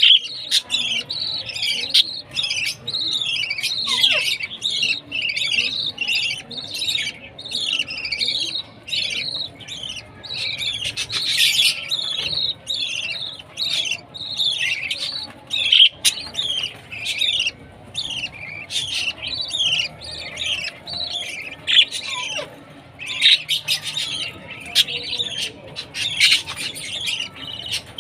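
Baby budgies (budgerigar chicks) chirping and squawking rapidly and insistently, several harsh calls a second with hardly a pause: the begging calls of chicks at feeding time.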